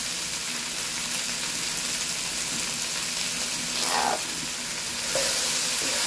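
Sliced bell peppers, onion and carrot sizzling steadily as they sauté in oil in an aluminium pot. A little after five seconds in, a spoon starts stirring them and the sizzling gets louder.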